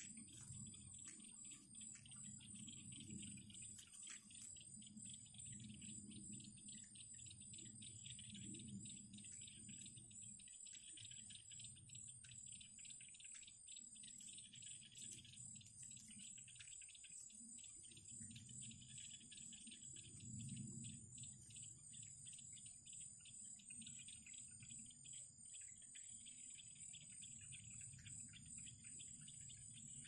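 Faint, steady high-pitched insect trilling of the cricket kind, pulsing evenly, over a low uneven rumble.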